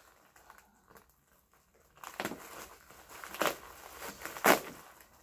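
Plastic bubble wrap crinkling as it is handled and cut open with scissors, starting about two seconds in, with three sharp crackles about a second apart.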